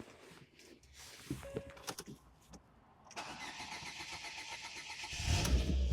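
Car engine being started: a few clicks, then the starter cranks with an even rhythm from about three seconds in, and the engine catches and runs near the end.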